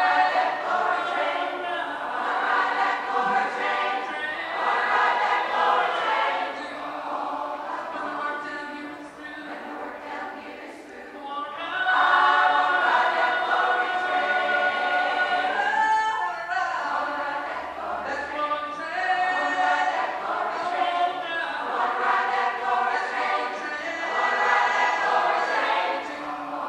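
Large mixed choir of about a hundred voices singing a gospel song, with a woman soloist singing into a handheld microphone in front of it. The singing drops quieter around the middle, then comes back louder about twelve seconds in with a long held note.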